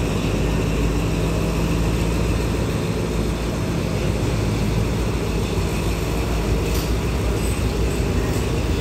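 Passenger train coaches rolling slowly past along the platform: a steady rumble of wheels on rail with a low hum, and a couple of short clicks near the end.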